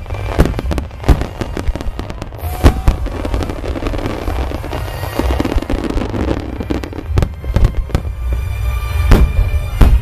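A rapid barrage of aerial firework shells (a starmine): many booms and bangs in quick, overlapping succession over a continuous low rumble, with the heaviest booms near the end. Music plays underneath.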